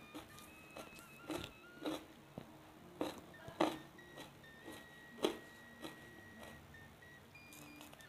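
Close-miked eating sounds of a meal eaten by hand: soft clicks and smacks of chewing and of fingers picking at rice and fish, about two a second, thinning out in the second half. Quiet background music plays underneath.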